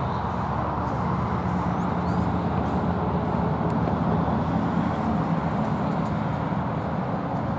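Steady vehicle noise: a continuous road-traffic rumble with a low engine hum that wavers slowly in pitch. A few faint, short high chirps sound above it.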